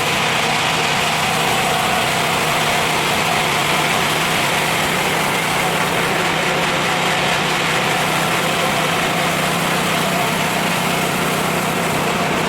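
Horizontal band sawmill's engine running steadily at an even pitch, with a constant hum.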